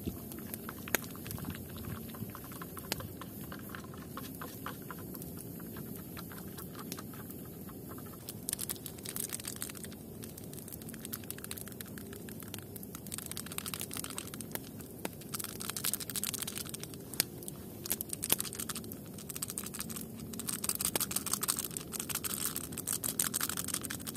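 Campfire crackling with scattered sharp pops, a twig stirring a drink in a steel mug, and a plastic sachet crinkling as it is handled and opened, busiest near the end.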